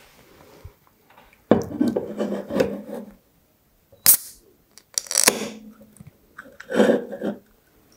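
Aluminium can of sparkling mango soda handled and rubbed in the hands, then its ring-pull tab lifted with a sharp click about four seconds in and the can cracking open with a short fizzing hiss about a second later, followed by more handling noise.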